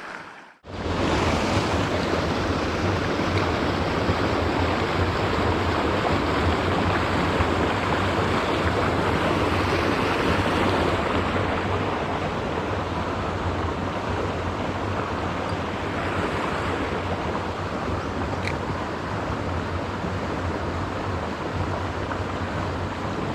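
Creek water rushing over rocks in a run: a steady, fairly loud rush of noise that eases a little about halfway through.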